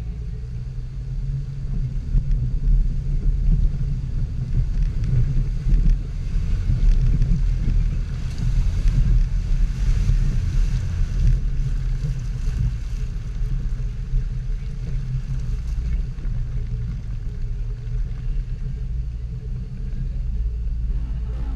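Jeep driving slowly through deep mud, heard from a hood-mounted camera as a steady low rumble of engine and wind buffeting, with a rise in hiss about eight to eleven seconds in.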